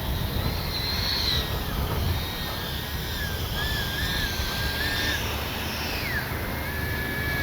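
The 70mm electric ducted fan of a Freewing BAE Hawk T1 RC jet whining in flight, its pitch stepping up and down with the throttle and dropping sharply about six seconds in. Wind rumbles on the microphone underneath.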